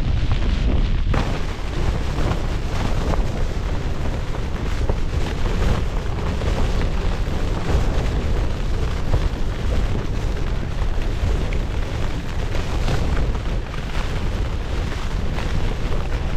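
Strong storm gusts battering a Nortent Vern 2 tent, the flysheet flapping hard and without a break, with heavy wind rumble on the microphone.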